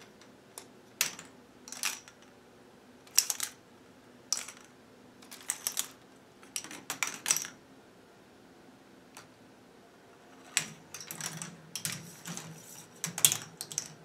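Plastic K'nex balls clattering through a K'nex ball machine's tracks and parts: irregular clusters of sharp clicks and rattles, with a quiet stretch of about three seconds in the middle and a busier run of clatter near the end.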